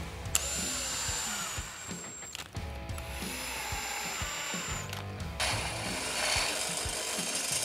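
Power drill running in two bursts of about two seconds each, a high whine with sliding lower tones, then a louder rushing tool noise near the end, over background music.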